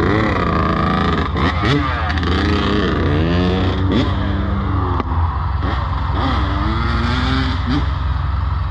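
Yamaha YZ125 single-cylinder two-stroke dirt bike engine running, with its pitch rising and falling repeatedly as the throttle is blipped while it warms up.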